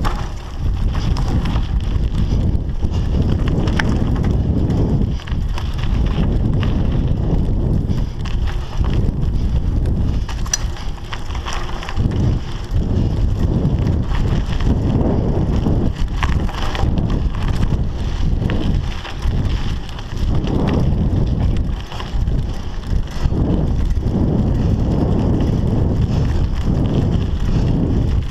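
Scott Scale 960 hardtail mountain bike ridden at speed on a dirt forest trail: steady wind noise on the action camera's microphone mixed with tyre noise and frequent short knocks and rattles from the bike over bumps.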